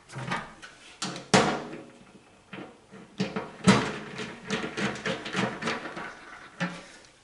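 Nut driver tightening the torque-limiting nuts on a blower motor's mounting bracket against the sheet-metal fan housing: irregular metal clicks and knocks, the loudest a little over a second in and just under four seconds in. The nuts are being snugged down until their sleeves seat metal to metal.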